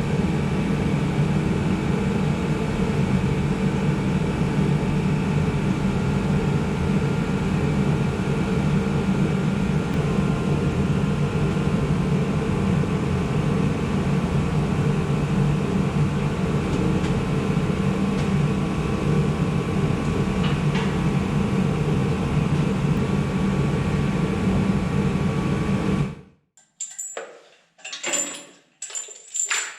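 Steady mechanical hum with a few faint whining tones, cutting off suddenly near the end. Music with sharp percussive hits starts right after.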